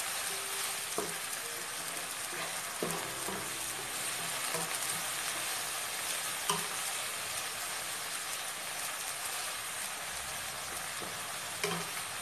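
Stir-frying sizzle: sliced green tomatoes, chilies and anchovies hissing steadily in an oiled nonstick wok as a spatula stirs them, with a few sharp knocks of the spatula against the pan.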